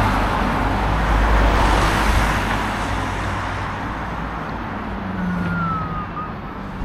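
Road traffic: a vehicle passing, its tyre noise swelling in the first couple of seconds and then fading away over a low engine hum. A short falling whistle comes about five seconds in.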